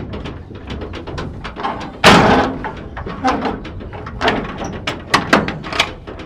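A loud bang from the metal livestock trailer about two seconds in, then several smaller knocks and a run of light clicks and clatter.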